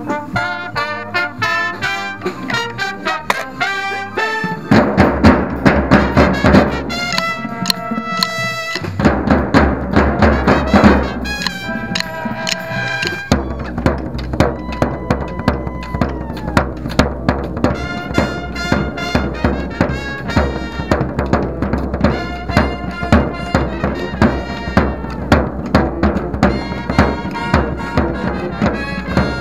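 Marching band brass and drumline playing together: brass chords over rapid, steady snare drum strokes close by. The ensemble gets louder and fuller about five seconds in.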